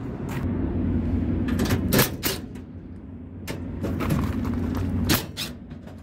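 Hand tools and a cordless impact driver being taken out of a plastic tool case: a string of sharp clacks and rattles over a low steady hum.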